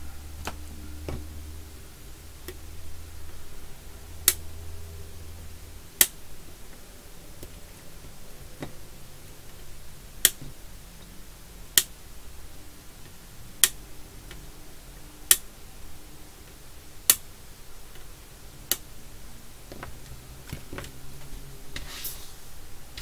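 A series of eight sharp clicks, one about every one and a half to two seconds, over a low hum that stops about six seconds in.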